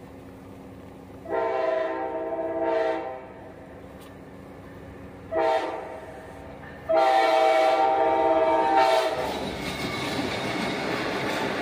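Amtrak Siemens ALC-42 Charger locomotive's multi-note horn sounding for a grade crossing: a long blast, a short one, then another long one. About nine seconds in, the horn stops and the steady noise of the train passing over the crossing takes over.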